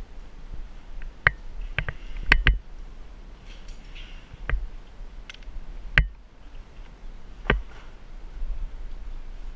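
Metal rigging hardware, a chain sling and rigging block, clinking in separate sharp clicks as they are handled around a palm trunk, several close together about two seconds in, then single clicks every second or so, over a steady low rumble.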